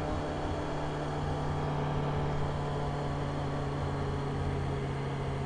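Motorcycle engine running steadily at constant revs, a low even hum with no rise or fall in pitch.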